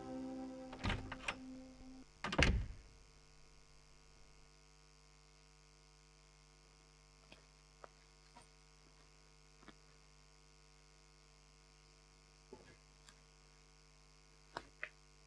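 Low, steady electrical mains hum on the soundtrack, with a few faint scattered clicks and knocks. The tail of a music cue fades out in the first two seconds, with two louder knocks between one and two and a half seconds in.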